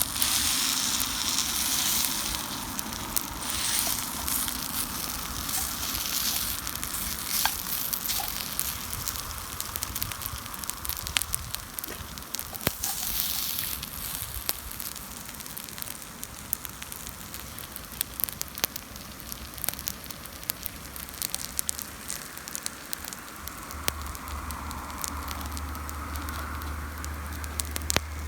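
Wood pellets burning in a Solo Stove fire pit: a steady hiss with frequent sharp crackles and pops.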